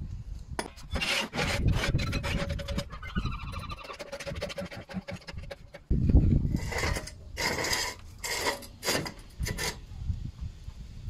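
Hand tools at a car wheel. First rasping and clicking from a wrench working the wheel nuts, with a squeak for a couple of seconds partway. Then a heavy thump about six seconds in and several bursts of metal scraping as a steel axle stand is set down and positioned on concrete.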